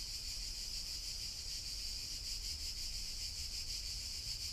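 Steady high-pitched chirring of insects, with a low hum underneath.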